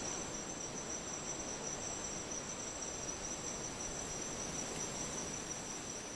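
Insects trilling steadily in chorus: a continuous high-pitched whine made of two close, unbroken tones over a steady background hiss.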